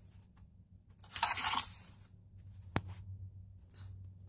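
Rustling and scraping as hands and wiring are moved around under a car dashboard, one burst about a second long, followed by a single sharp click.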